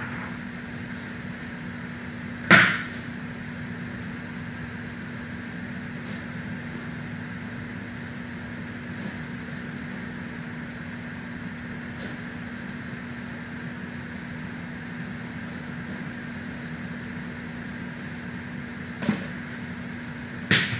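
Steady low hum and hiss of an empty room, broken by one sharp knock about two and a half seconds in and two fainter clicks near the end.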